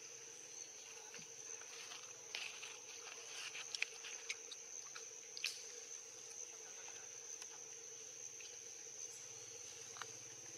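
Insects chirring steadily at a high pitch, with a fainter, lower steady hum beneath. Scattered small clicks and rustles come between about two and six seconds in.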